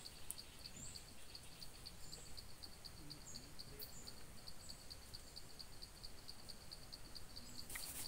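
Faint outdoor chirping: a short high chirp repeating steadily about three to four times a second, with a few brief, higher falling bird chirps, over a faint high hiss.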